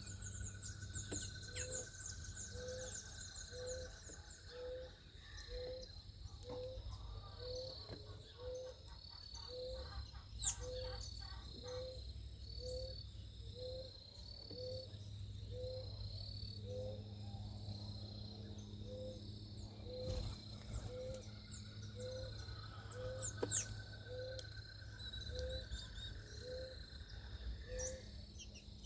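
Backyard birds calling over a steady insect buzz. A low note repeats evenly about once a second throughout, with high chirps and trills above it. Two sharp calls stand out, about ten seconds in and again near the twenty-three-second mark.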